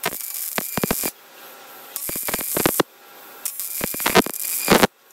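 AC TIG welding arc struck three times at about 20 amps over dirty cast aluminum, each run about a second long with short breaks between, hissing and crackling. The arc is being used only for its cleaning action, boiling contaminants out of the porous metal before welding.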